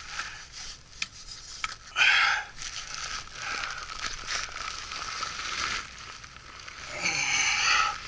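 Crinkling and rustling of the foil-faced plastic jacket on insulated flexible ductwork as it is handled, with small clicks between. Louder rustling comes about two seconds in and again near the end.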